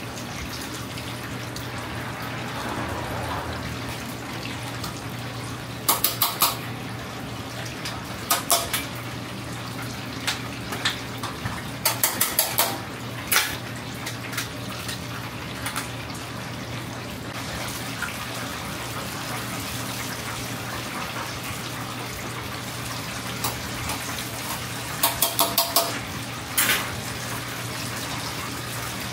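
Karaage chicken pieces frying in a deep fryer, the oil sizzling steadily over a low hum. Several clusters of sharp metallic clicks as steel tongs knock against the fryer and its basket.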